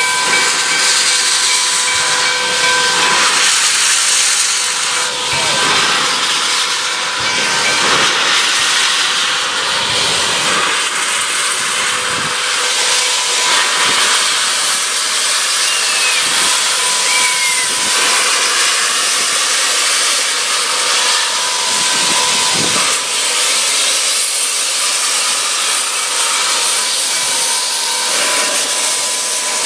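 Steam hissing steadily from Nickel Plate Road 765, a 2-8-4 Berkshire steam locomotive, with a thin steady whine running through the hiss.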